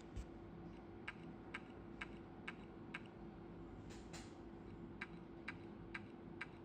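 Toshiba 1.8-inch hard drive clicking about twice a second, with a longer double click about four seconds in, over a steady hum. The repeated clicking comes from a new drive that the computer no longer detects.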